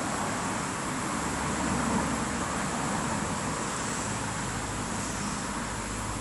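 Steady background hum of road traffic, an even wash of sound with no distinct events, under a constant high hiss.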